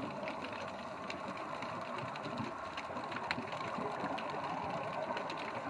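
Underwater ambience picked up by a submerged camera: a steady crackling hiss dotted with many small clicks, with one sharper click a little past halfway.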